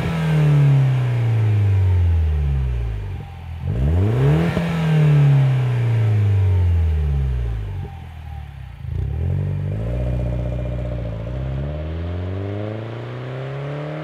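MINI Cooper Clubman S (R55) turbocharged 1.6-litre four-cylinder being revved through a stainless cat-back exhaust with dual straight-through mufflers. The engine falls away from a rev at the start, is blipped sharply again about four seconds in and slowly drops back. Near the end it climbs slowly and steadily in pitch.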